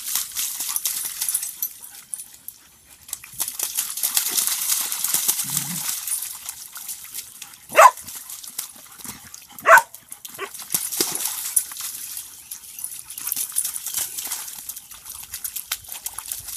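Dogs splashing and wading through a muddy puddle, with two loud, sharp dog barks about two seconds apart near the middle.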